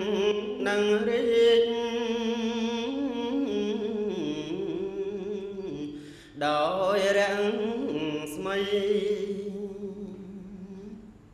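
Melodic Buddhist chanting sung by a single voice with strong vibrato over a steady low tone. It dips briefly about six seconds in, resumes, and fades out near the end.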